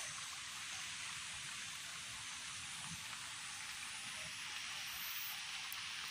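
Light rain falling: a steady, even hiss with no distinct drops or other events.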